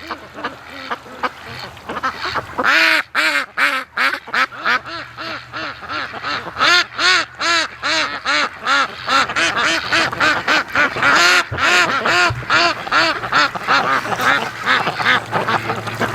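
A flock of white Pekin ducks quacking, many short quacks a second one after another, thin at first and then a dense, loud chorus from about three seconds in.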